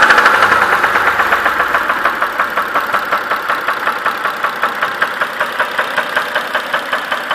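Mitsubishi 6B31 3.0 V6 engine running with a regular knock. The revs fall back over the first couple of seconds, then it idles with about four knocks a second.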